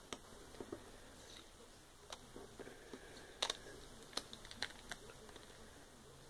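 Tape being slowly peeled up from a tabletop: faint crackling with a handful of small, sharp ticks as it lets go.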